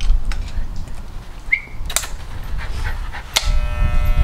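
A dog panting, with a short high whine about a second and a half in and a few sharp clicks. About three and a half seconds in, electric dog-grooming clippers switch on and hum steadily.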